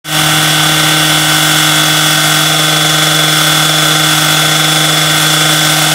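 Engine-driven rail saw running at full speed, its abrasive disc cutting into a steel rail: a loud, steady whine that holds one pitch throughout. The disc is worn so small that it does not get through the rail.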